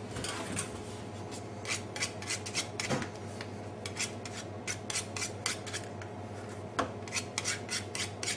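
A knife blade scraping across a floured stainless steel surface, clearing dough, in bursts of quick short strokes with brief pauses between.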